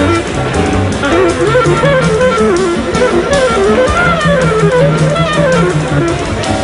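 Up-tempo jazz: a fast, winding melodic line over a bass line, with cymbals ticking steadily.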